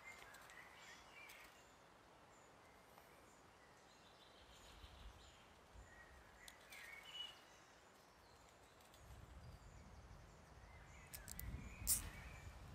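Near silence with faint bird chirps. Near the end come a few small clicks and one sharper click as a plastic cable tie is pulled tight.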